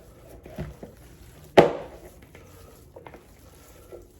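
Kitchen handling noises while ground beef is mixed and worked by hand. A single sharp knock about one and a half seconds in is the loudest sound, with a few softer knocks around it.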